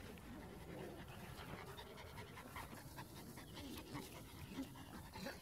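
Dogs panting with short, quick breaths close to the microphone.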